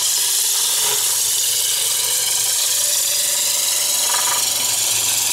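Wood lathe running while a spinning square wooden blank is fed through a 3/8-inch Veritas dowel maker. The cutter blade shaves it round with a steady, hissing cutting noise over the low hum of the lathe.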